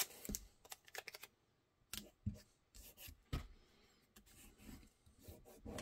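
Faint hand-handling sounds of blue painter's tape being worked onto a pistol mould: scattered light clicks, crinkles and rubs as a strip is placed and pressed down.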